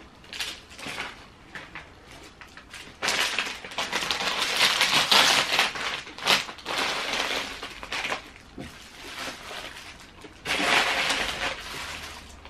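Plastic snack bags crinkling and crisp snacks pouring out onto a plate: a dense crackling rustle in two long stretches, starting about three seconds in and again near the end, with lighter crinkles before.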